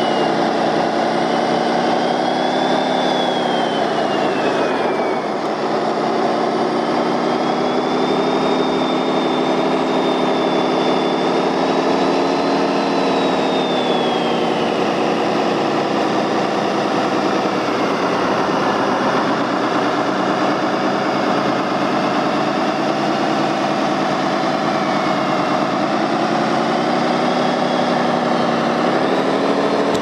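Radio-controlled MAN 8x8 truck driving under load: a steady engine-like hum with many overtones and a higher whine above it. Its pitch sags and recovers with the throttle, dropping about four seconds in and again past the middle, and rising near the end.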